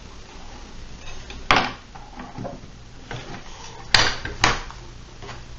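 Kitchen knife knocking on a cutting board as limes are halved, and a glass mixing bowl being set down on the board. There are three sharp knocks: one about a second and a half in, then two close together about four seconds in.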